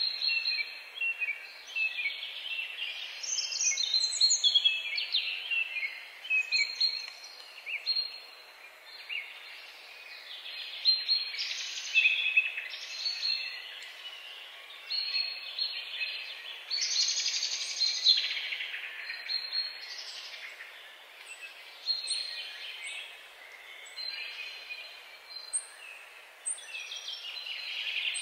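Several songbirds chirping and singing, short calls and trills overlapping one after another, over a faint steady background hiss. From about two-thirds of the way in, a thin high note repeats at even intervals above the others.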